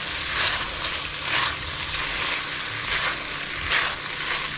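Smoked bacon, pasta and curd cheese sizzling as they fry together in a pan, stirred in repeated strokes that stand out above the steady sizzle about every half second.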